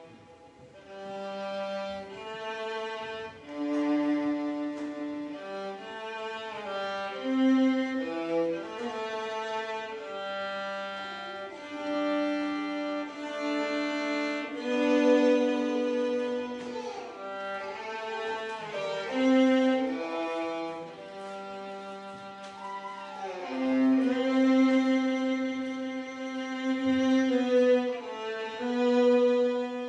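Solo violin playing a melody, mostly notes held for a second or two, with a few slides in pitch between them.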